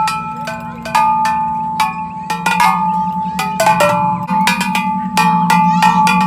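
Bell-like metallic notes struck in quick, irregular succession, each ringing on, over a steady low hum.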